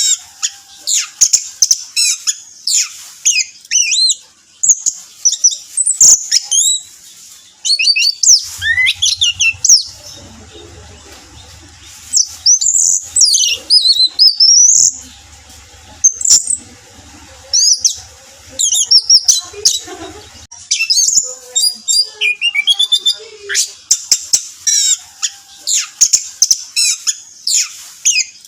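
Orange-headed thrush (anis merah) singing a fast, varied song of sharp whistled sweeps and chirps, in quick phrases with brief pauses.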